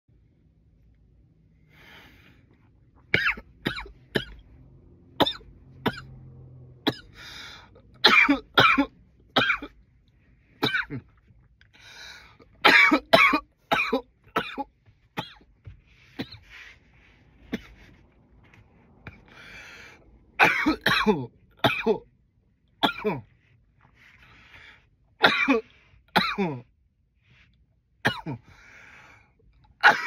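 A man coughing loudly in repeated fits, each a quick run of two to five sharp coughs, with softer breaths drawn in between the fits.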